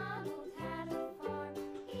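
Background music for a children's video, with a steady beat of short repeated bass notes under a light melody.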